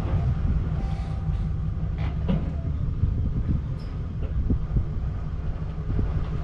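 Turbo-diesel pickup driving under load while towing a heavy gooseneck trailer, heard from inside the cab: a steady low engine and road drone with scattered light rattles.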